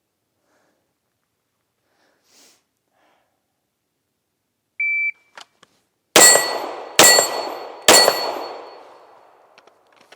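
A shot timer's start beep, a short steady tone, then about a second later three rapid handgun shots a little under a second apart, each leaving a metallic ring that fades out.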